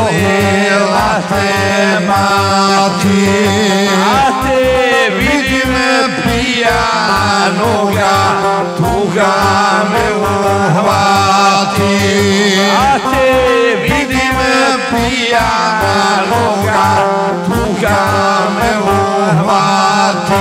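Live Balkan folk music: a long-necked saz and an arranger keyboard playing over a steady keyboard bass-and-drum beat, with men singing.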